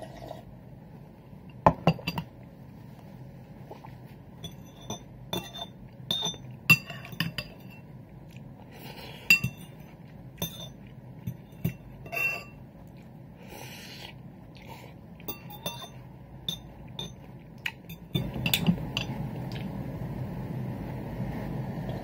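A metal spoon clinking against a ceramic bowl: a string of irregular sharp clinks, each with a short ring, the loudest about two and seven seconds in. Near the end a steady low rushing noise sets in.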